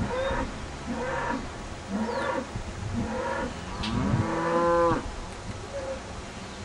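Beef cattle mooing: several short calls about a second apart, then one longer, louder moo about four seconds in.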